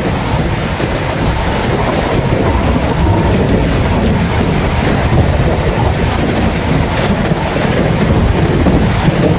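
Heavy steady rain with a continuous deep low rumble underneath.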